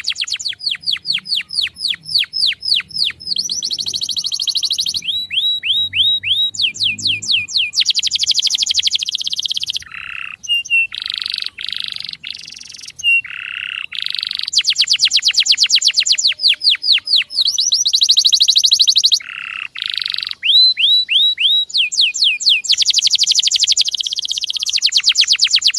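Male canary singing: long, fast trills of repeated sweeping chirps, switching between quicker and slower rolls every second or two, with a few longer single notes near the middle.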